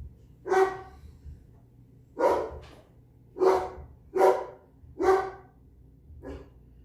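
Dog barking six times, about a second apart, the last bark fainter: a dog barking at someone at the door.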